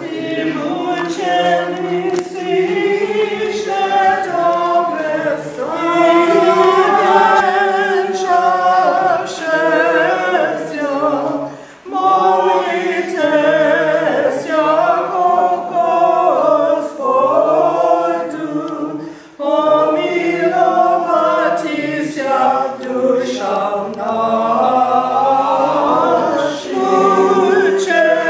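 A congregation singing a hymn together, unaccompanied, in phrases with brief pauses about twelve and twenty seconds in.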